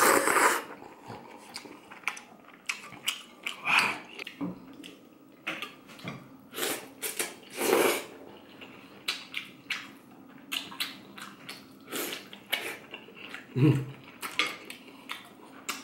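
Close-miked eating sounds: chewing and mouth noises over a bowl of beef noodle soup, with irregular clicks and clinks of utensils against the bowl.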